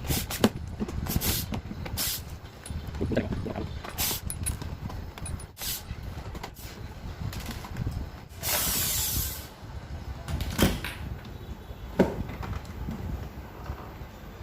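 Knocks and clicks of an evaporative air cooler's casing and parts being handled during disassembly, with a longer scraping rush of about a second and a half near the middle.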